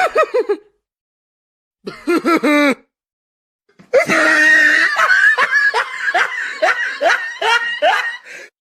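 Laughing sound-effect clips, played one after another with silent gaps: a short burst at the start, about a second of rhythmic laughter two seconds in, then a longer stretch of laughter from about four seconds in.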